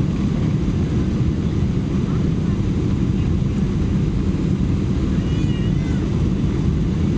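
Steady low rumble of a Boeing 747-400's engines and its rolling on the ground, heard from inside the passenger cabin. A brief, faint high wavering squeal comes in about five seconds in.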